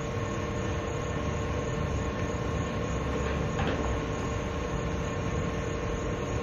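Steady mechanical drone with a constant hum over a broad hiss.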